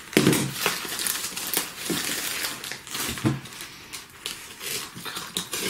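Plastic wrapping and foam packing sheet crinkling and rustling in irregular crackles as a box cutter slits through the taped packaging around a flat cardboard parcel.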